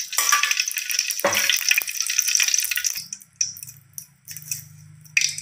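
Cooking oil poured into a hot kadai, crackling and sizzling on the hot metal for about three seconds, then settling to a few scattered pops over a faint low hum.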